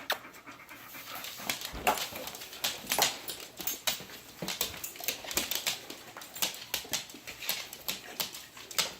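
A pet dog close to the microphone, making a string of irregular short clicks and rustles, with one low thump about two seconds in.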